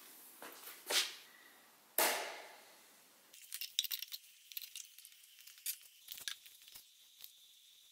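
Two sharp clacks about a second apart, the second the loudest, then a run of light metallic clinks and taps as a screwdriver works at the lid of a paint tin.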